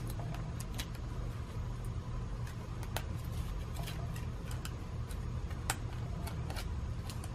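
Small, irregular plastic clicks and ticks as fingers pick and snap leftover brim and filament strings off a 3D-printed PLA switch plate, over a steady low hum.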